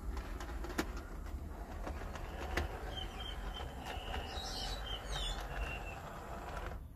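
Hornby Class 59 OO gauge model diesel locomotive running along the track: a steady whir from its motor and wheels, with sharp clicks as the wheels cross rail joints and points.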